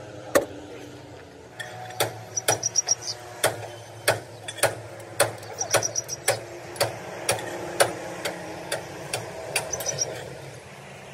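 Hammer striking metal in a series of sharp blows, roughly two a second, during differential repair work. Three short bursts of rapid high ticking come between the blows, over a low steady hum.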